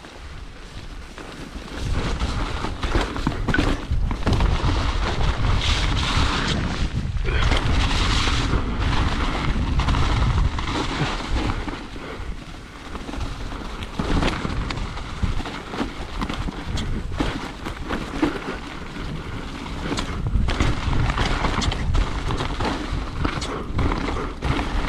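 Salsa Rustler full-suspension mountain bike ridden fast down a sloppy trail and over a step-up jump: tyres running over wet mud and leaves with a heavy low rumble and scattered knocks and rattles from the bike over bumps. It gets louder about two seconds in as the bike picks up speed.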